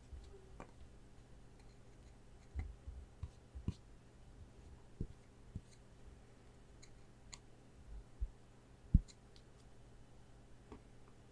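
Gloved hands handling trading cards and plastic card stands: scattered light clicks and soft taps, with a sharper knock about nine seconds in.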